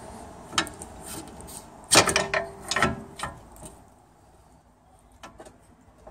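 Steel pry bar levering against the front wishbone's pivot bolt: a scatter of sharp metal clicks and knocks as the bolt is worked loose, loudest about two seconds in, with a couple of fainter taps near the end.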